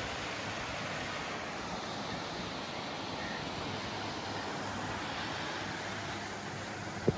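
Steady roar of Upper Yosemite Fall in heavy snowmelt flow, an even rushing noise with no break. A single sharp knock just at the end.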